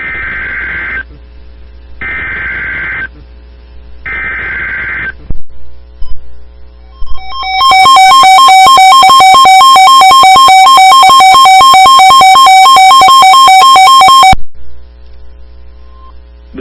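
Emergency Alert System tones on a TV broadcast, announcing a severe thunderstorm warning: three one-second bursts of the digital SAME header data about a second apart, then the loud, steady two-tone attention signal held for about seven seconds before it cuts off abruptly.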